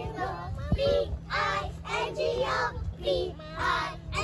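A group of young children singing together in short phrases, with a brief low thump just under a second in.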